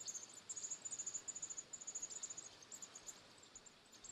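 American robin nestlings begging for food: runs of rapid, very high-pitched chirps that die away about three seconds in.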